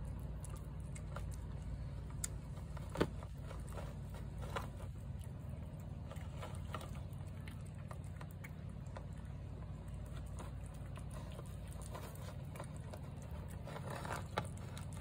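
A cat eating wet food from a plate close to the microphone: a stream of small, irregular chewing and smacking clicks, a couple of them sharper. A steady low hum runs underneath.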